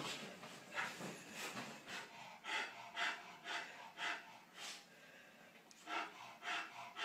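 Bull terrier snorting and huffing in short, quick breaths, about two a second, with a brief pause about five seconds in.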